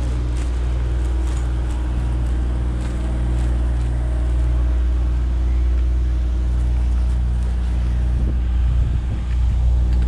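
A steady, loud low motor hum, with wind gusting on the microphone near the end.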